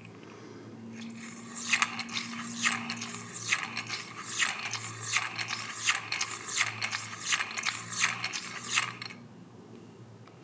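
Safety razor blade sharpener being cranked by hand, its gears and ratchet clicking and clattering a little under twice a second as the blade holder turns between the honing rollers. The clicking starts about a second and a half in and stops near the end.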